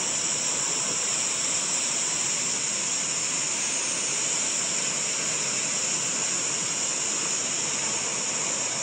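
A river in flood after heavy rain, its floodwater rushing past rocks in a loud, steady rush that sounds like a jet aeroplane.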